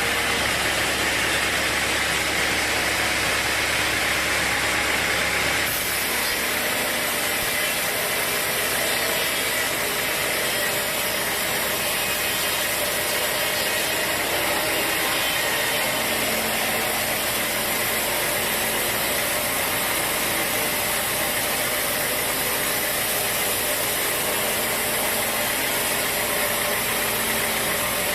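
Sawmill machinery running steadily: a loud, continuous mechanical noise that changes abruptly about six seconds in.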